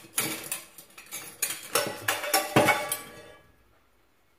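Metal kitchenware clattering against an aluminium cooking pot: a quick run of clinks and knocks that stops about three seconds in.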